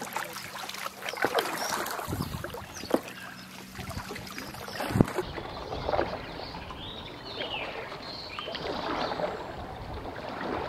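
Canoe paddles dipping and pulling through slow river water: irregular splashes and drips, with a sharp knock about five seconds in.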